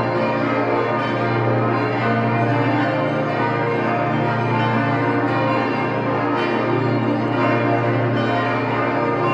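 The twenty-bell full peal (Großplenum) of Herrenberg's Stiftskirche, many swinging church bells ringing together. Their overlapping tones run on continuously at a steady loudness.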